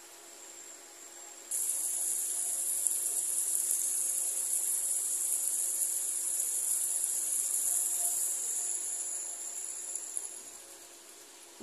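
Taro-stolon curry sizzling in a nonstick pot: a steady high hiss that starts suddenly about a second and a half in and fades away over the last few seconds, with a faint steady hum underneath.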